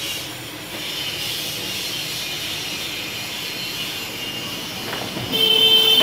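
Steady hissing street and shop background noise; about five seconds in, a passing vehicle sounds its horn, a loud held tone that is the loudest thing here.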